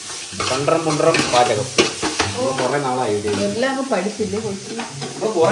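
Sliced onions sizzling in oil in a large aluminium pot, stirred with a metal spoon that clicks and scrapes against the pot, with voices talking over it.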